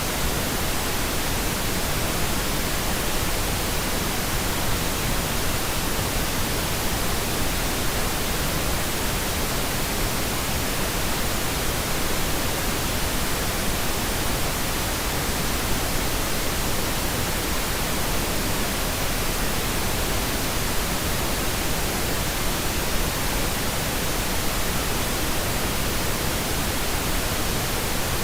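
White noise machine sound: a steady, even hiss spread across all pitches, with no change in level.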